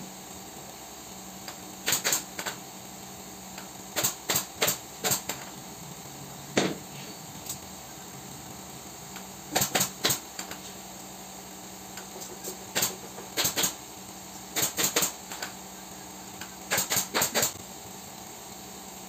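Sponge loaded with latex glue being dabbed against a cardboard-covered sofa frame, making quick taps in clusters of two to four every couple of seconds.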